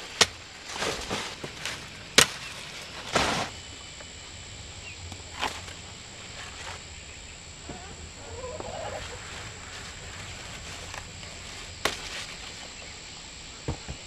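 A blade chopping through sunflower stalks: sharp single strikes, two in the first few seconds and two more near the end, with the large leaves rustling between them.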